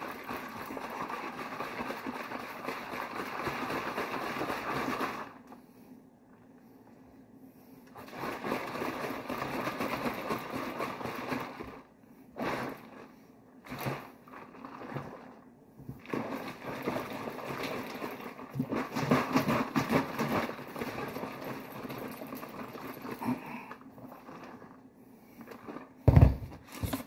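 Honey and water sloshing inside a large plastic jug that is shaken hard by hand to mix mead must, in several bouts of a few seconds with short pauses. A loud thump near the end.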